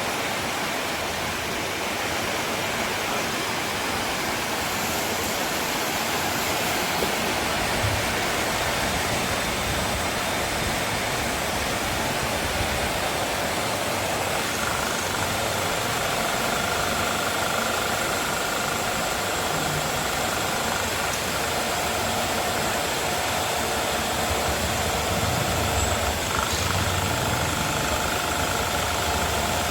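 CNC milling machine running while cutting a plastic injection mould: a steady noisy hiss, with a steady whine of two pitches coming in about halfway and holding.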